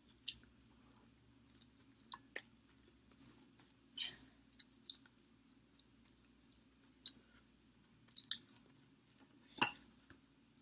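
Close-miked eating sounds of someone chewing chicken wings: faint, scattered sharp mouth clicks and smacks with pauses between them, the loudest one near the end.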